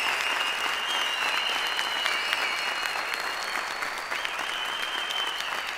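Live theatre audience applauding steadily, with high, drawn-out tones over the clapping; the applause eases slightly toward the end.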